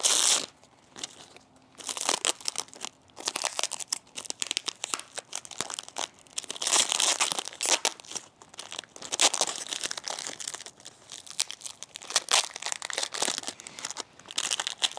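Clear plastic wrapping around a plant's pot being crinkled and peeled off by hand, rustling in irregular bursts.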